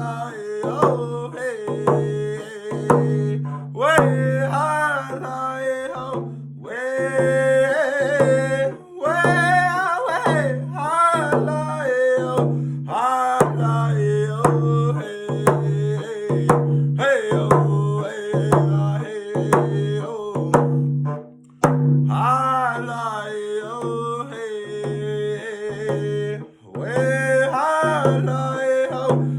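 A young man singing a Native round dance song, his voice rising and falling in phrases, over a steady, evenly repeated drumbeat.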